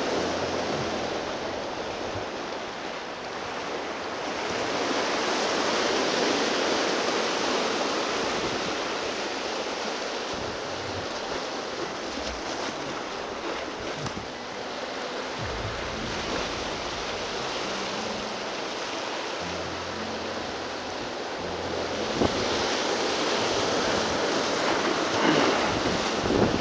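Sea surf breaking and washing over shoreline rocks: a steady rushing that swells louder a few seconds in and again near the end.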